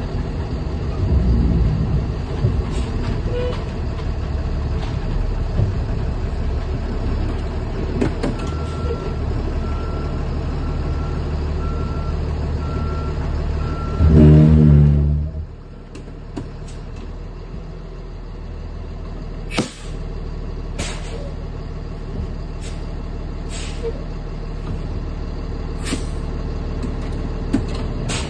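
Lion diesel school bus engine running as the bus manoeuvres, with the reversing beeper sounding about once a second for several seconds. About halfway through the engine surges loudly for a moment, then drops to a quieter run, followed by several short sharp hisses from the air-brake system.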